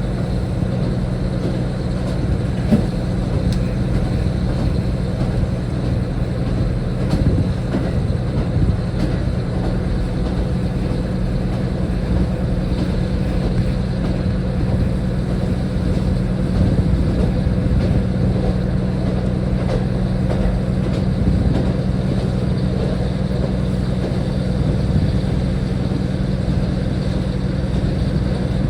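Diesel railcar running along the line: a steady engine hum mixed with continuous rolling noise, unchanging throughout.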